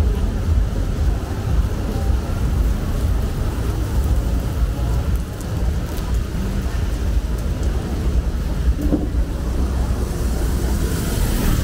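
Wind buffeting the microphone in a heavy, fluttering low rumble over a steady hiss of rain and surf on the shore. A brighter hiss swells near the end.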